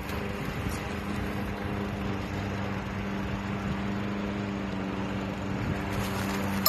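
A steady mechanical hum with several low held tones, from a machine running, and a single sharp click at the very end.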